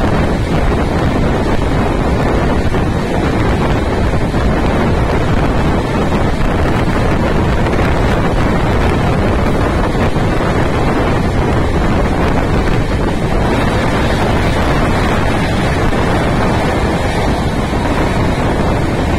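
Loud, steady rush of wind buffeting the microphone, over the low rumble of a moving Mumbai suburban local train.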